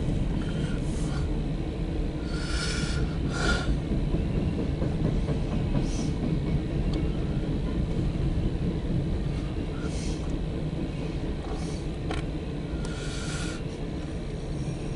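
Empty coal hopper cars of a freight train rolling past on the rails, a steady rumble with brief higher-pitched sounds every few seconds.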